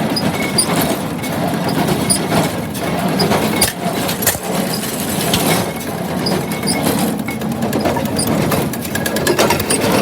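1980 John Deere 346 wire-tie square baler running under power, a steady mechanical clatter with recurring clicks and knocks, with a tractor engine running under it.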